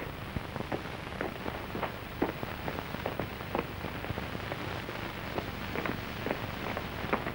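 Steady hiss scattered with irregular clicks and pops, the surface noise of a worn old film soundtrack.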